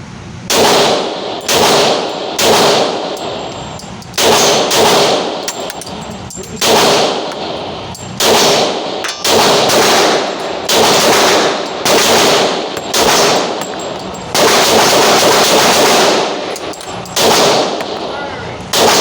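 Glock 22 pistol firing .40 S&W rounds, shot after shot at roughly one a second, each report ringing briefly, with a quicker string of shots about three-quarters of the way through.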